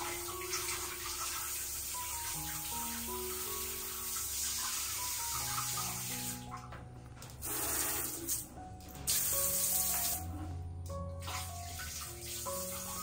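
Water running from a tap in a steady stream, broken off briefly about three times in the second half, over background music of slow held melodic notes.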